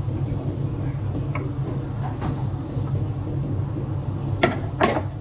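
Frying pan and wooden spatula knocking lightly as cooked chicken is pushed off the pan onto a plate, with two sharper knocks of pan or utensil near the end, over a steady low hum.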